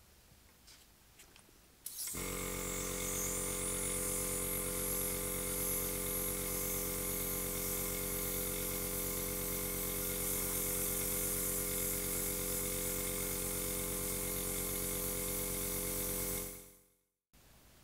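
An airbrush hissing steadily as it sprays lacquer, over the constant hum of its small air compressor. It starts suddenly about two seconds in and fades out near the end.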